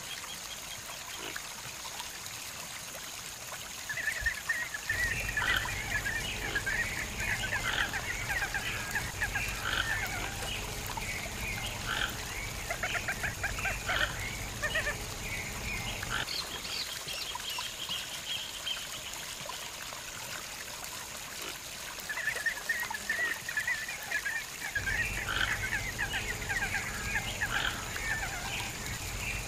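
Toco toucans calling: two long bouts of rapid croaks, the first starting about four seconds in, the second starting about two-thirds of the way through.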